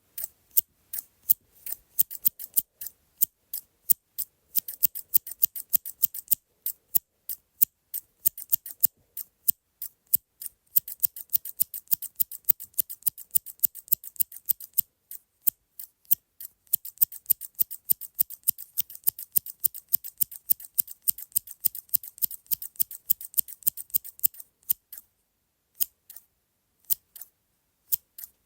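Medium-sized scissors snipping over and over, sharp crisp cuts several times a second in quick runs, thinning to a few single snips near the end.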